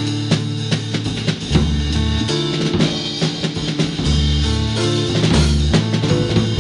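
Background music with a drum kit and bass: a steady drum beat over a bass line that steps between held notes.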